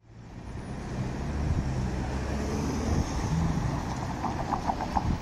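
Amsterdam city tram running with a low rumble, its warning bell ringing in a quick run of about five strokes about four seconds in.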